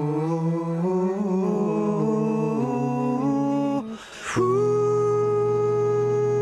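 Multitracked male background vocal harmonies, four to five parts, sung a cappella. The held chord shifts a few times, breaks off briefly about four seconds in, then comes back as one steady held chord.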